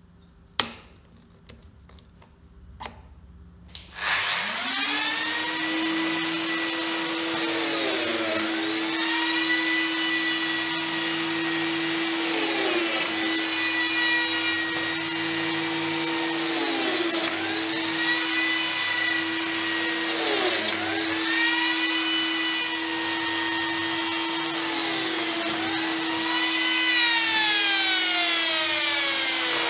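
A few sharp clicks as the P-System depth regulator on a Lamello Zeta P2 biscuit joiner is turned. Then the joiner's motor starts, over the steady hum of the attached dust extractor. Its pitch dips briefly every few seconds as the cutter plunges into the panel edge to mill slots, and it winds down near the end.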